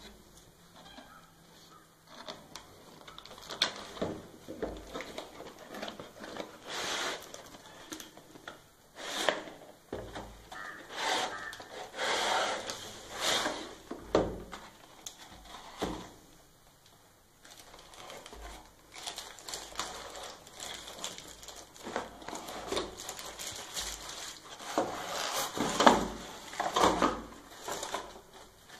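Cardboard packaging being opened and handled: box flaps and an inner cardboard tray scraping and rustling, with plastic wrapping crinkling, in irregular bursts.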